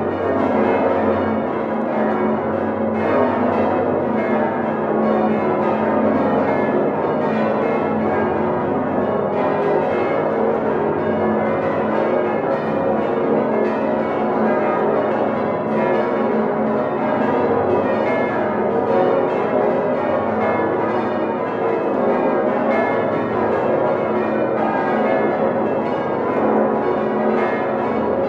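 Full peal (volgelui) of the Domtoren's large bronze church bells, all swinging together and striking continuously in overlapping, irregular strokes. The ringing is loud and close, heard from inside the bell chamber.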